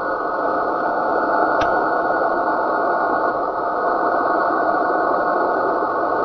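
Radio receiver static: a steady rushing hiss cut off above the receiver's narrow audio band, with one sharp click about a second and a half in.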